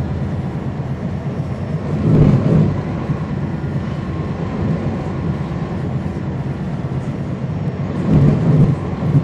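Cummins ISL9 inline-six diesel of a NABI 40-foot transit bus running under way, a steady low drone heard inside the cabin from the rear, near the engine. It swells louder twice, about two seconds in and again near the end.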